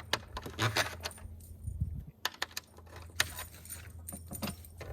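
Small metal hardware, 1/4 inch carriage bolts with their nuts and washers, clinking and rattling in irregular sharp clicks as it is handled and slid along the snowmobile tunnel's T-slot rail.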